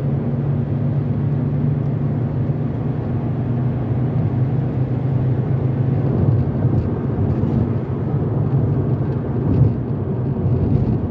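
Car driving at highway speed, heard from inside the cabin: a steady low rumble of road and engine noise.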